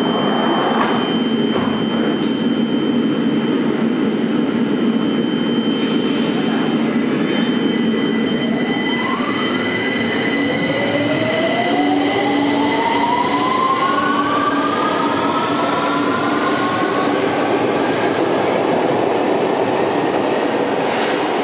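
London Underground 2009 Stock train departing: its doors shut about six seconds in, then its electric traction motors start up with a whine of several tones that rises steadily in pitch as the train accelerates out, over the steady rumble of the train.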